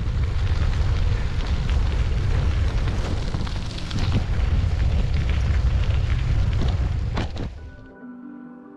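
Heavy wind noise buffeting the microphone of a camera riding along on a bicycle on a gravel forest road. It cuts off near the end and soft ambient music begins.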